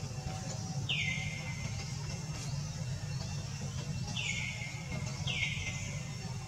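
A bird gives a short, harsh call three times, about a second in and twice near the end, over a steady low background hum.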